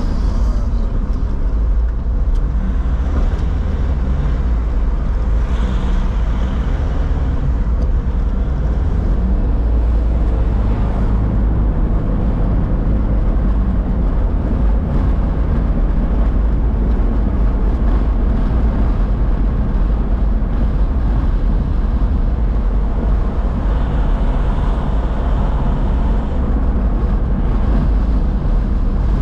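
Steady, loud low rumble of city street noise with road traffic.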